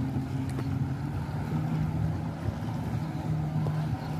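A motorboat engine running steadily: a low hum whose pitch wanders slightly.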